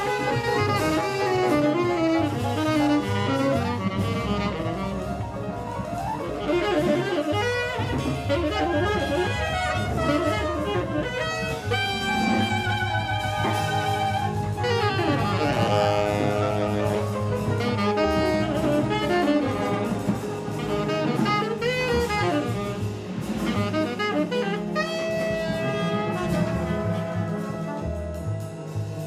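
Small jazz band playing an instrumental passage: a tenor saxophone plays the lead line, bending and sliding in pitch, over a drum kit, upright double bass and piano.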